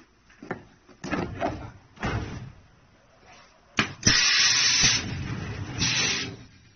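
Folded rubber tyre knocking and rubbing on the steel table of a tyre compacting machine as it is handled. About four seconds in, a sharp click is followed by a loud hiss lasting about two seconds.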